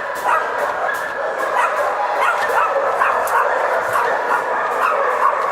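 Many sheltered dogs barking and yelping at once, a continuous overlapping din with no break.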